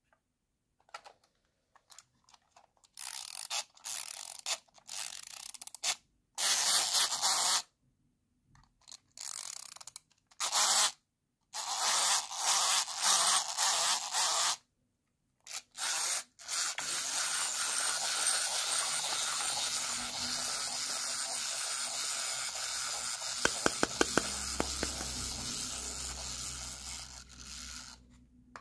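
Plastic wind-up toy: its key is turned in a series of short ratcheting bursts, then the clockwork spring motor runs with a steady mechanical whirr for about ten seconds, fading near the end as it winds down.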